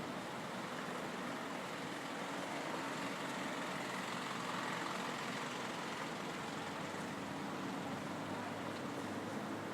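Street traffic ambience: a steady wash of noise from passing vehicles, swelling slightly about halfway through.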